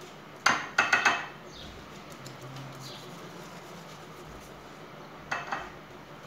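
Pastry brush clinking against a ceramic bowl of melted ghee while phyllo sheets are being buttered: a quick run of four ringing clinks about half a second in, and two more near the end.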